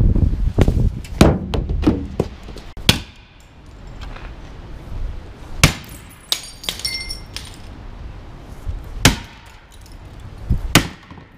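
Wooden police baton knocking against hard things: about ten sharp, irregular knocks, with a short run of glassy clinking in the middle.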